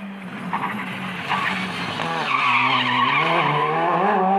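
Rally car engine running at high revs on a special stage; its pitch drops a little over two seconds in as the driver lifts off, then climbs again as the car accelerates.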